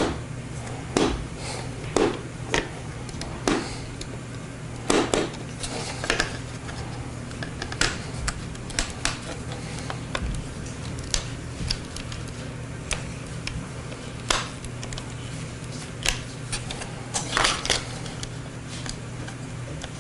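Irregular clicks and knocks of hard plastic toy-blaster parts being handled and fitted together, with a steady low hum underneath.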